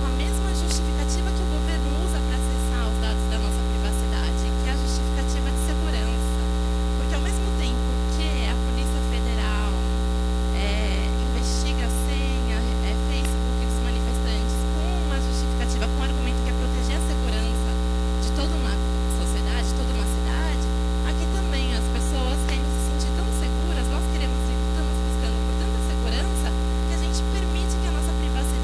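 Loud, steady electrical mains hum: a low buzz with many overtones that holds unchanged throughout and drowns out almost everything beneath it.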